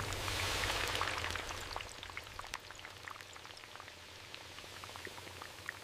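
Potato slices frying in a trough of hot oil: a steady sizzle full of small crackling pops, louder in the first second or two, then settling. A low hum fades out over the first few seconds.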